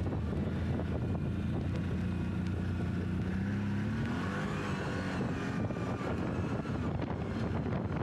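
CFMOTO CForce 1000 ATV's V-twin engine running while riding. Its pitch rises and then wavers up and down about halfway through.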